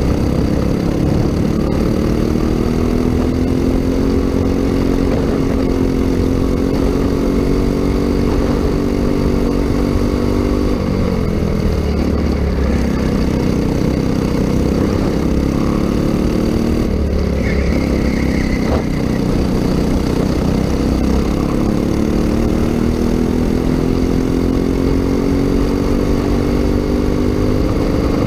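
Racing go-kart engine heard from onboard, running hard with its pitch climbing steadily as it accelerates. The revs drop sharply twice, about ten and seventeen seconds in, as the throttle is lifted for corners, then climb again.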